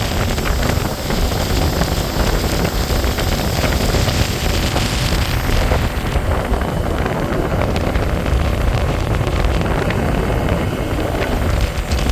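Wind buffeting the microphone: a loud, steady rumble with a hiss over it, which eases a little in the upper range about six seconds in.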